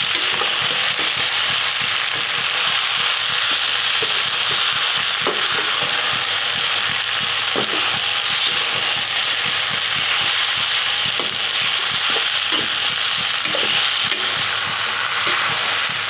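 Sauce-coated macaroni sizzling steadily as it is stir-fried in a steel pan, with a few light clicks and scrapes of the steel spatula against the pan.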